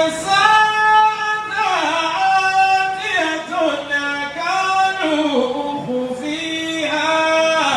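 A man's voice chanting into a microphone in a drawn-out, melismatic style. It moves in long held notes with gliding turns between them, and the longest held note comes near the end.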